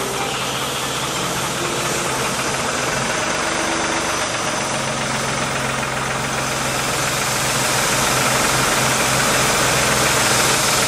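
Crane engine running steadily with a low hum as it lifts and carries a slung marble block, growing a little louder toward the end.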